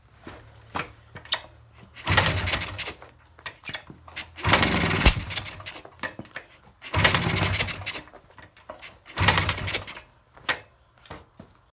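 Kawasaki F7 175cc single-cylinder two-stroke dirt bike engine firing in four short bursts of a second or so each, dying away between them. It starts but won't keep running, a hard-starting engine suspected of losing compression through damaged spark plug threads and of flooding.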